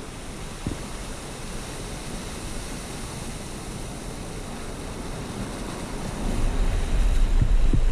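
Ocean surf washing in and out of Thor's Well, a sinkhole in the shoreline rock shelf, as a steady rushing wash of seawater. About six seconds in, a heavy low rumble grows louder.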